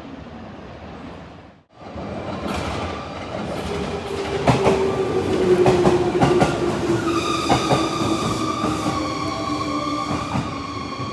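Electric commuter train moving along a station platform, wheels clicking over rail joints while a motor tone falls slowly in pitch as it slows. A steady high-pitched squeal sets in during the last few seconds. The sound breaks off briefly about one and a half seconds in.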